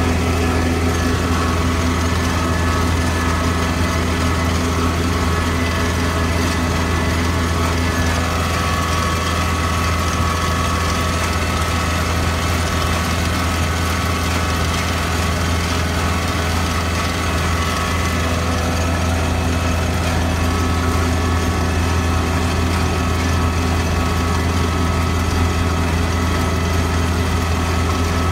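Engine of a vehicle towing a turf seeder, running steadily at constant speed with a strong low hum.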